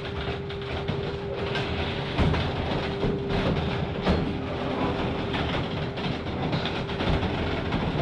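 E-Z Crusher car crusher pressing down on an old round hay baler: the crusher's power unit runs with a steady hum while the baler's heavy steel framework creaks and gives sharp cracks as it folds, about two, three and four seconds in.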